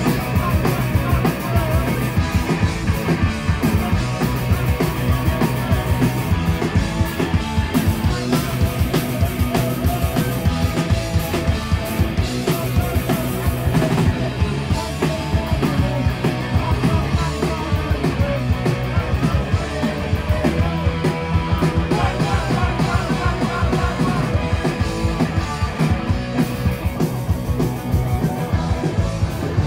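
Punk rock band playing live: electric guitars, bass and drum kit with a steady beat, and a singer's vocals over them.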